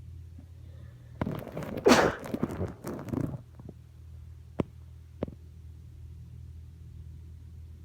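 A person with a head cold sneezing once, wetly: a short build-up, then a loud sneeze about two seconds in, followed by a second or so of wet breathy sniffling. Two brief clicks follow a little later, over a steady low hum.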